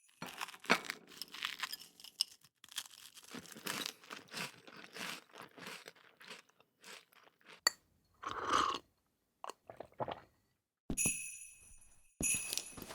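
Irregular crunching sound effect, many short crisp strokes, with a louder rustling burst about two-thirds of the way through. Jingling sleigh bells come back near the end.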